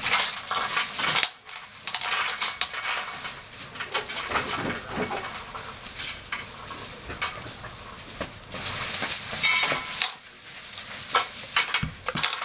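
Hamburger patty sizzling on a grill over a burning wood-gas stove, with a steady hiss and many small crackles and pops. It grows louder briefly at the start and again about eight and a half seconds in.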